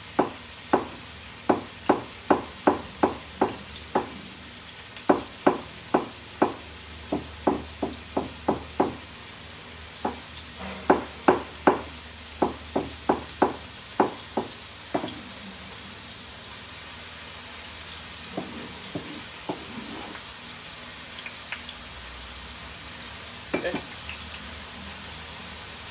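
Kitchen knife chopping on a wooden cutting board, sharp knocks about two a second for the first fifteen seconds, then a few scattered knocks. Underneath, the steady sizzle of sliced mushrooms frying in hot oil over a high flame.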